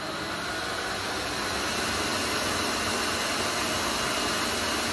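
Electric stand mixer running steadily at speed, its beater creaming baking fat and sugar in the bowl. The motor's whir grows slightly louder and cuts off abruptly at the end.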